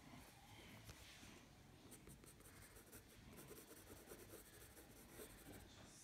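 Faint scratching of a pencil sketching on sketchbook paper, in short irregular strokes.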